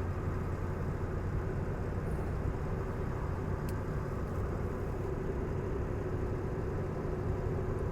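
Steady engine hum and road noise inside a moving pickup truck's cab.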